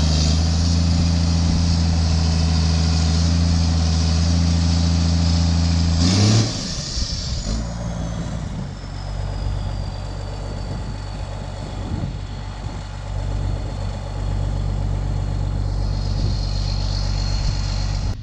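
An engine running steadily and loudly. About six seconds in it revs up briefly, then settles to a lower, quieter running speed, with a high whine slowly falling in pitch.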